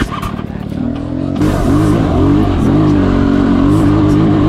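SWM enduro dirt bike's engine running as the bike rides along, lower and uneven for about the first second, then a louder, steady engine note about a second and a half in, its pitch wavering slightly with the throttle.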